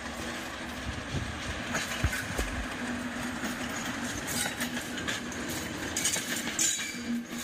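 British Rail Class 37 diesel locomotive passing close by, its English Electric V12 diesel engine running with a steady drone, and wheels clicking over the rails.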